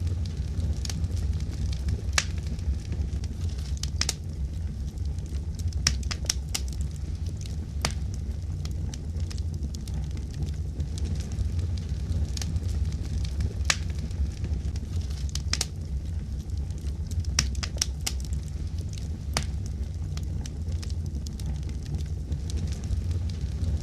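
Fire crackling: sharp pops at irregular intervals over a steady low rumble.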